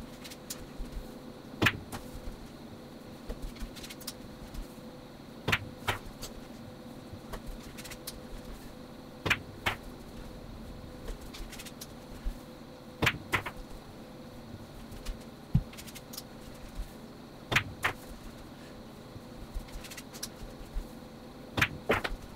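Pool balls clicking sharply about every four seconds during stop-shot practice, several strikes coming in quick pairs: cue tip on cue ball, then cue ball on object ball. A faint steady hum runs underneath.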